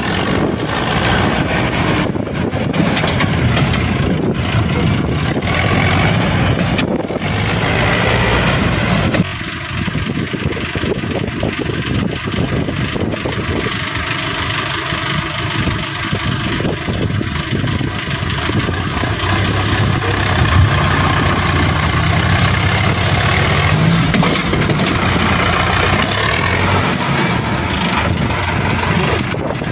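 Sonalika DI 750 III tractor's diesel engine running hard, hauling a loaded trailer through deep sand. The sound is steady and loud, with an abrupt change about nine seconds in.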